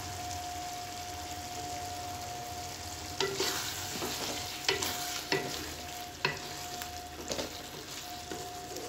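Wooden spatula stirring a simmering tinda masala curry in an aluminium kadai. The gravy sizzles steadily. From about three seconds in, the spatula knocks and scrapes against the pan several times.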